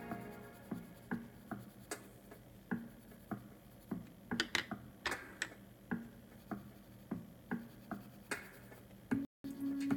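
Coloured pencil scratching on paper in short, quick shading strokes, about two a second. Background music fades out at the start and comes back near the end.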